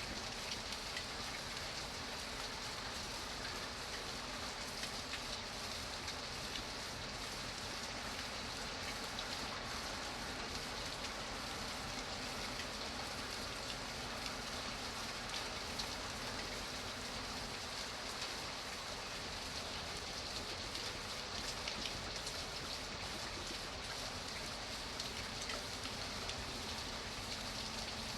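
Steady rain falling, an even hiss with scattered small drop ticks on a surface.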